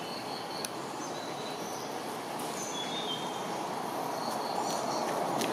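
Scattered short, high bird chirps over a steady low background rumble that grows a little louder near the end.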